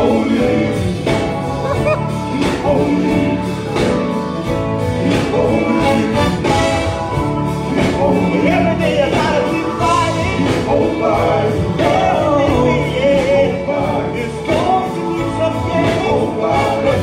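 Live gospel music: a group of singers with band accompaniment, carried along by a steady beat.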